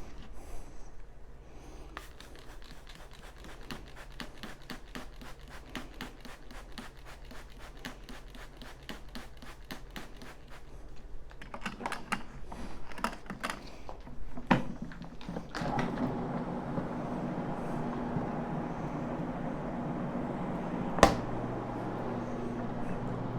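A rapid, even run of light clicks, about six a second, then scattered louder clicks; about fifteen seconds in, a carpet-cleaning pad machine's motor starts a steady hum, with one sharp knock near the end.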